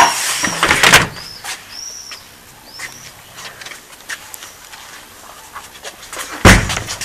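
Short high squeaky chirps repeating every half second or so, with sharp knocks near the start, then a heavy bang about six and a half seconds in as a door is forced open.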